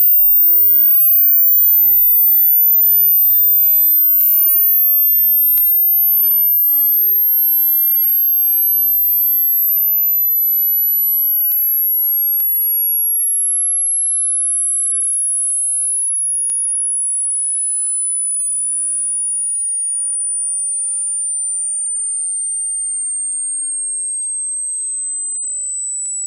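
Hearing-test sine tone: a single very high pure tone that descends in small steps from about 15 kHz to about 8 kHz, getting slightly quieter as it falls.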